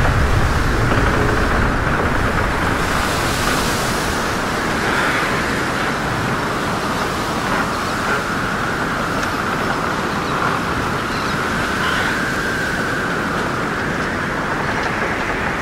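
Steady rushing noise, with a faint hum drifting up and down in pitch and a brief brighter hiss about three seconds in.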